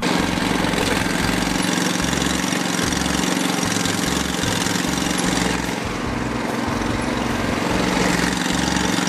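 Ditch Witch trencher's small engine running steadily, its level dipping slightly about six seconds in.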